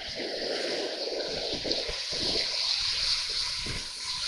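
River rapids rushing and splashing around an inflatable raft: a steady hiss of whitewater with irregular low rumbling.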